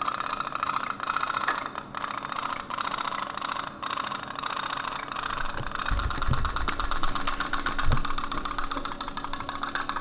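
Tin pop-pop (putt-putt) toy boat running on the water with a rapid, steady popping, as its candle-heated boiler turns water to steam and pulses it out of its two pipes. A few low thumps come about six to eight seconds in.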